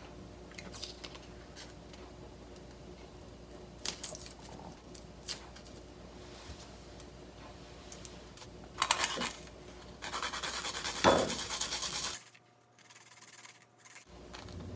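Faint scratching and small crackles of a garlic clove being peeled by hand, then a louder stretch of rasping scraping about ten seconds in as the garlic is grated on a hand grater. The sound drops out completely for a moment near the end, then faint scraping resumes.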